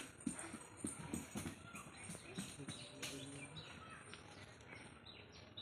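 Faint chirps from a young parrot amid a string of short scratchy clicks, several a second, that thin out after about three seconds.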